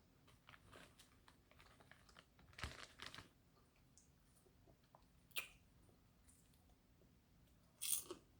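Quiet chewing of kettle corn popcorn, with a few short crisp crunches; the loudest comes near the end.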